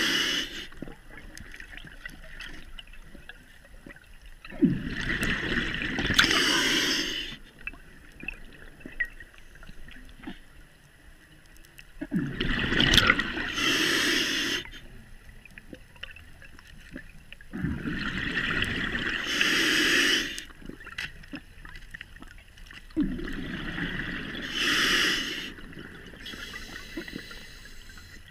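Scuba diver's regulator breathing underwater: about every five to six seconds an exhalation bubbles and gurgles out of the exhaust for a couple of seconds, four times, with quieter stretches between breaths.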